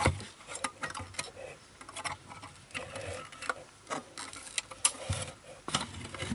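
Irregular small clicks and taps as an empty film spool is worked into the metal spool clips of a Kodak No. 2 Cartridge Hawkeye box camera's film holder, with handling rubs in between.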